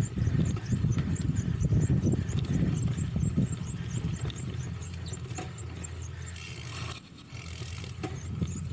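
Cyclocross bike ridden over rough ground, heard from the rider's camera: a steady rumble of tyres and wind on the microphone, with a faint, rapid, regular ticking. About seven seconds in there is a brief hiss with a short high whistle.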